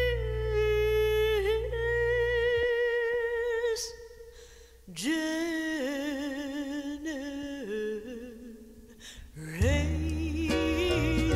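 Slow song: a solo voice holding long notes with vibrato over a low sustained accompaniment. The accompaniment drops out about a quarter of the way in and comes back near the end, and the singing breaks off briefly about four seconds in.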